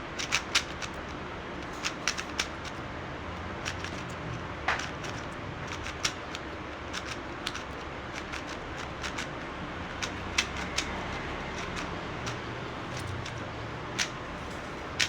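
Magnetic speed cube being turned by hand: scattered sharp plastic clicks as the layers turn and snap into place, bunched in quick runs near the start and then coming every second or two.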